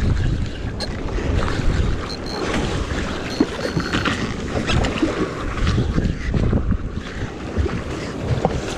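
Wind buffeting the microphone over the wash of water against a small boat, steady throughout, with scattered small knocks.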